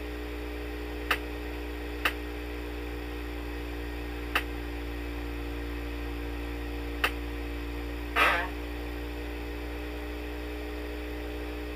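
Steady low hum of the shaker vibrating the silicone oil bath. Four sharp ticks are heard, and a short squeaky chirp about eight seconds in.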